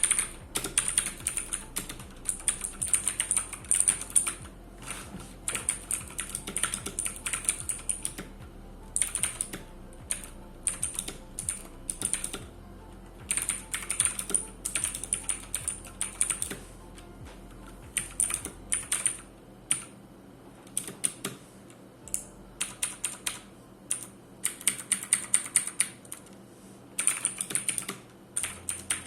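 Clicky blue-switch mechanical keyboard (ET-I960) being typed on in quick runs of keystrokes, broken by short pauses every few seconds.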